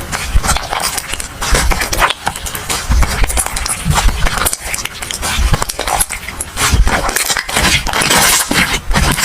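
Hands squeezing and stretching slime, a dense run of irregular clicks and pops.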